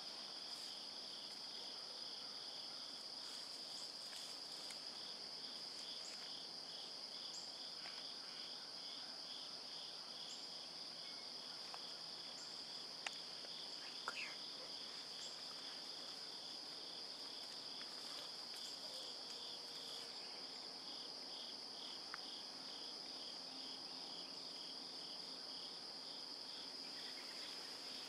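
Faint insect chorus in the woods: a steady, high, unbroken trill with a lower chirp pulsing evenly beneath it, like crickets or katydids. A few faint clicks come about halfway through.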